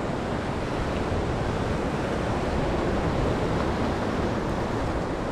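Steady rush of sea surf with wind buffeting the microphone.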